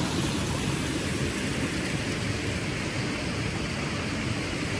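Shallow mountain river running over stones and a small riffle: a steady, even rush of water.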